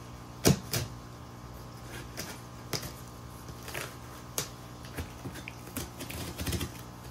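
A folding knife slicing through packing tape on a cardboard box: irregular short scrapes and taps as the blade cuts and knocks against the cardboard, the sharpest about half a second in and a quick run of them near the end.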